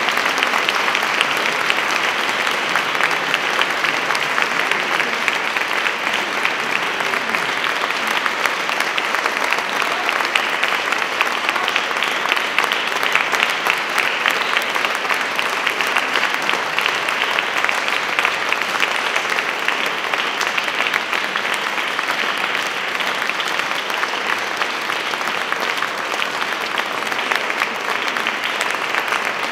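Audience applauding: many people clapping steadily, a dense patter of hand claps.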